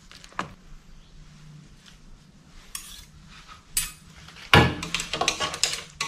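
A metal ladle and chopsticks clinking and scraping against a stainless steel pot while instant noodles are served out of it. Scattered knocks, then a quick run of clinks near the end.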